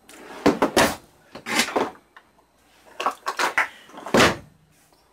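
Rummaging in a kitchen utensil drawer: four or so sudden clatters of utensils knocking together and the drawer sliding, the loudest about four seconds in.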